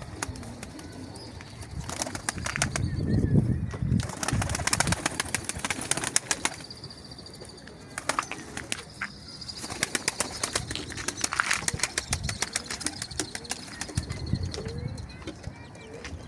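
Domestic pigeons flapping their wings in repeated quick flutters and claps, with some low cooing between.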